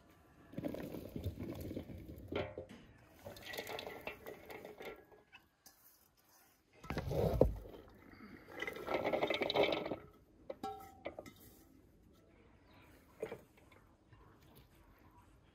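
Chopped vegetables tipped from bowls into a large stainless steel basin: several rustling, clattering pours, with a heavier thump a little past the middle, then a few light clicks.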